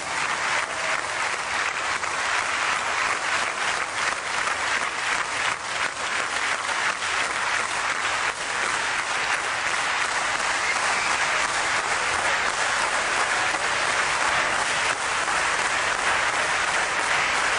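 Audience applauding, a dense, steady clapping that is sustained without a break.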